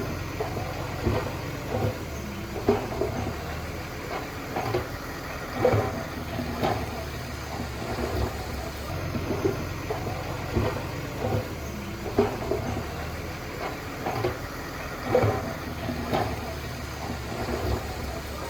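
Heavy construction machinery's diesel engine running steadily, with short irregular knocks and clanks coming about once a second.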